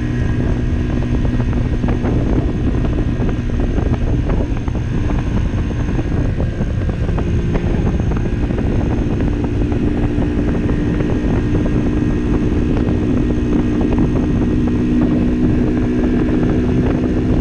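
Barton Volcano 50cc moped engine running steadily at full throttle while riding, with heavy wind rumble on the microphone.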